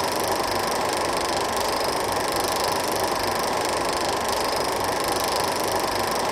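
16mm film projector running, a steady, unbroken mechanical noise.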